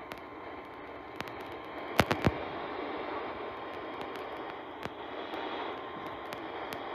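Radio static: a steady hiss from the receiver, broken by scattered crackles and pops, with a cluster of three sharp pops about two seconds in.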